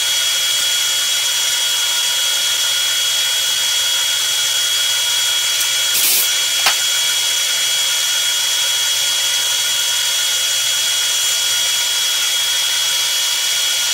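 Manual metal lathe running steadily, its spindle turning a round metal blank while the lathe tool cuts it: a continuous machine whine over a hiss. A short click about six seconds in.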